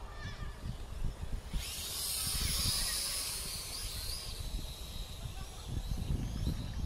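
Wind buffeting the microphone, a rough low rumble throughout. About one and a half seconds in, a loud hiss starts suddenly and fades away over the next few seconds.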